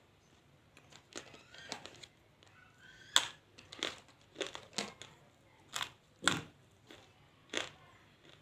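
Dry multani mitti (Fuller's earth clay) crunching in a series of about nine sharp, irregular crunches, the loudest about three and six seconds in.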